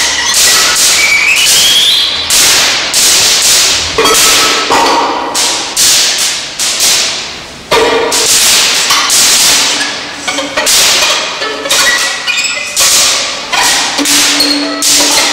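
Solo violin played with harsh, scratchy, percussive bow strokes: a quick run of sharp attacks, each dying away, with a rising slide about a second in and a few short held notes between.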